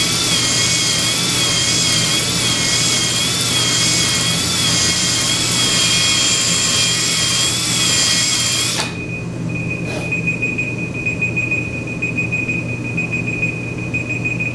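Electric drill spinning a Flex-Hone ball honing brush in an oiled cast-iron cylinder bore of a Triumph Spitfire engine block, its whine wavering in pitch as the brush is stroked in and out to cross-hatch the wall. The drill cuts off suddenly about 9 seconds in; a knock follows, then a timer alarm beeps rapidly at a high pitch, marking the end of the honing time.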